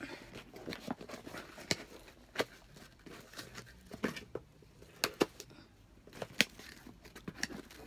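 Small scissors snipping at a cardboard package, with a sharp snip or click about every second and light rustling of packaging in between.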